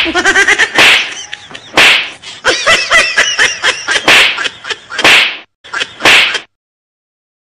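Stick blows heard as repeated whip cracks and slaps: about six loud sharp cracks with quicker snaps between them, plus wavering pitched cries. They stop about a second before the end.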